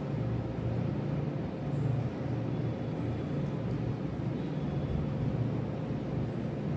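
Steady low rumble with a faint, even hum above it and a few soft ticks; no distinct sound from the suturing stands out.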